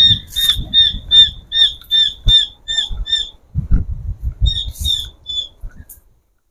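A bird calling a fast series of short, slightly falling squawking notes, about two and a half a second, breaking off and then giving three more about four and a half seconds in. Low thuds and rustling of footsteps on grass sound underneath.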